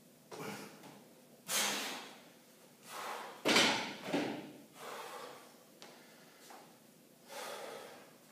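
A man breathing hard after a heavy set of dumbbell extensions: about seven forceful, noisy exhalations half a second or so each. The loudest comes about three and a half seconds in and starts suddenly, with a knock, just as he reaches the dumbbell rack.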